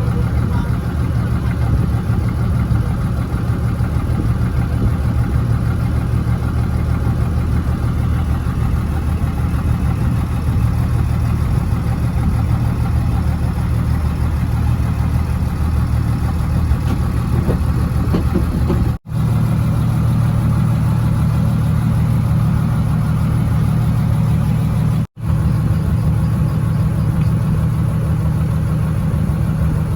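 A fishing boat's engine runs steadily with a low, even drone. It cuts out abruptly for a split second twice, about 19 and 25 seconds in, and sounds a little heavier after the first gap.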